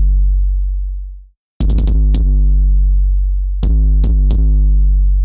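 Synthesized 808-style kick drum from FabFilter Volcano 3, its boom made by a self-oscillating resonant high-pass filter. Each hit is a click followed by a long sustained sub-bass boom with a small downward drop in pitch. One boom fades out about a second in, a quick run of about five hits follows, and three more hits come near the end.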